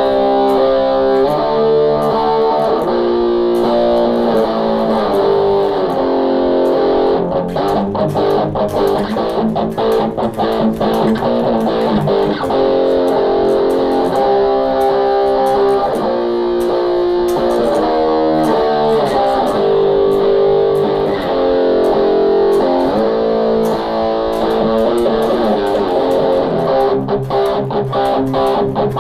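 Electric guitar played through a multi-effects processor and taken as a direct line signal, with no amp or microphone. It plays a continuous part of held chords and notes that change every second or two.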